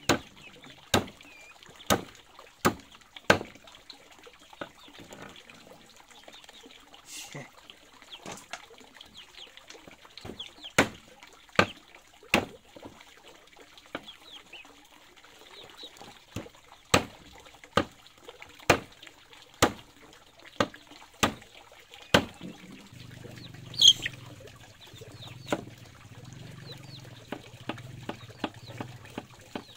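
A series of sharp knocks or strikes at irregular intervals, roughly one a second in clusters, softer and quicker near the end.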